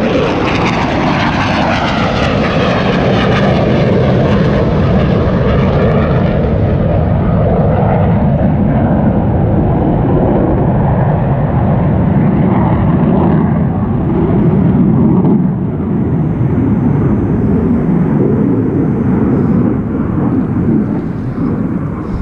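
Military aircraft flying low overhead: a loud rushing roar whose pitch sweeps downward over the first several seconds as it passes, then a steady rumble that eases off a little in the last few seconds.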